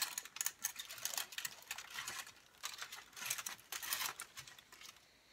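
Aluminium foil crinkling and crackling as a hand moves through it, in quick spells of dense crackle that fade out near the end.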